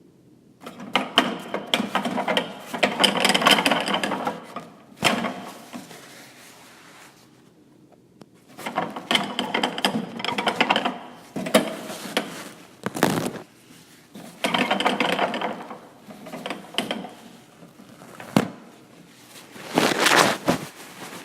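Toilet paper pulled off a roll in a restroom dispenser, the roll rattling as it spins, in four pulls, each ending in a sharp tear.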